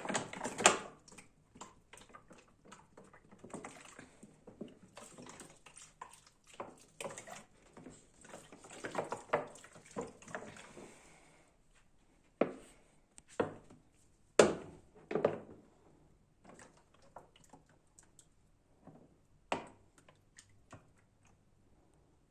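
Irregular light knocks and clatter from houseplant pots and a watering can being handled during watering, with a denser rustling, pouring-like stretch about seven to eleven seconds in.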